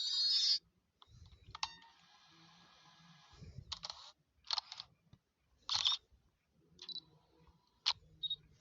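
A string of short sound effects previewed one after another from a video-editing app's library: a click and a brief buzzing tone, then several short hissy clicks and swishes about a second apart, one with a short high beep.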